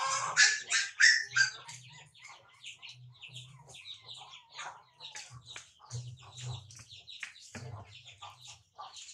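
Small birds chirping rapidly and without a break, mixed with chickens clucking. The calls are loudest in the first second or so.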